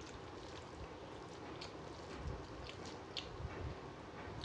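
Faint eating sounds: fingers squishing and mixing boiled rice on a metal plate, with scattered small wet clicks over a steady low background noise.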